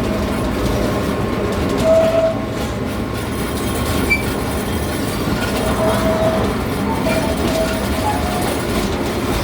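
Amusement-park ride train running along its track: a steady rumble of wheels on rail, with a few brief high tones of about half a second each at intervals.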